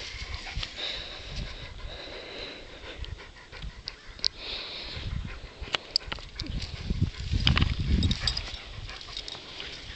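Siberian husky panting and shifting about on the grass while a harness is fitted onto it, with sharp clicks from the harness fittings and a louder low rumbling stretch about seven to eight seconds in.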